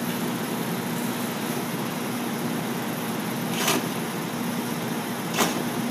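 Milwaukee cordless drill running under load, turning a large key-drive bit through the wall of an explosion-proof junction box: a steady motor hum with cutting noise. Two short sharp noises break in, one a little over halfway through and one near the end.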